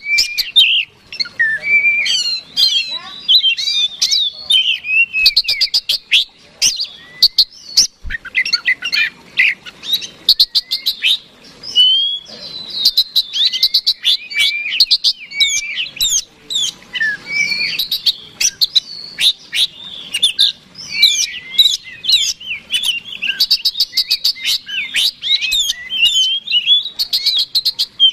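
Oriental magpie-robin (kacer) singing without a break: a long, varied run of clear whistled phrases mixed with rapid clicking, chattering rattles. This is the kacer's persistent fighting song, used as a lure to rouse rival birds.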